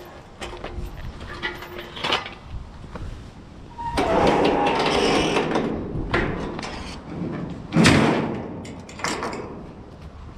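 Scrap metal scraping and clanking on a utility trailer's steel deck as a tubular metal frame is loaded, then the trailer's steel mesh ramp gate being lifted. Scattered knocks come first, then a loud scrape lasting about two seconds starting about 4 s in, then a sharp metal clang near 8 s and a second one about a second later.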